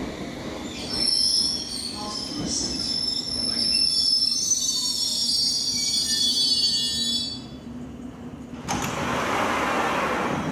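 London Underground train wheels squealing in several high tones as the train runs through the station, fading out after about seven seconds. Near the end a sudden steady hiss starts.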